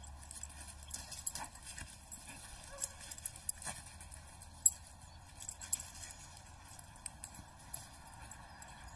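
Faint scattered taps and rustles of a dog and a cat scampering and tussling on leaf-strewn grass, with one sharper click a little past the middle.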